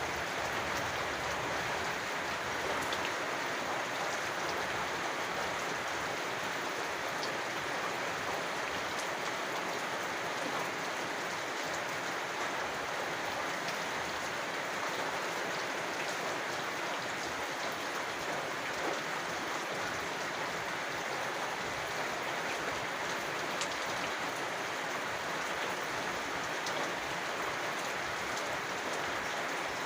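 Steady rain falling, an even hiss with scattered sharper ticks of individual drops striking a surface.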